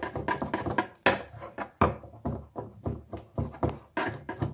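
Kitchen knife chopping mortadella finely on a cutting board: quick, irregular knocks of the blade on the board, several a second.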